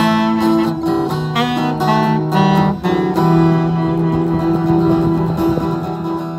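Saxophone and strummed acoustic guitar playing together, closing the song on a long held note that starts to fade near the end.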